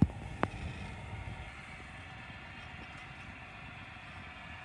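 Two sharp knocks in the first half second, then a steady low rumble of a model diesel locomotive running on the layout.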